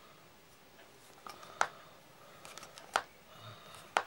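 Knife blade cutting around the plastic hull of a shotgun cartridge, with a few sharp clicks as the blade snaps through, the loudest about one and a half, three and four seconds in.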